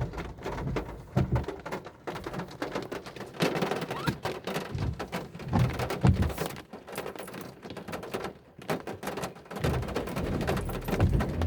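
Heavy rain falling, with many irregular drips and splashes and an occasional low thud.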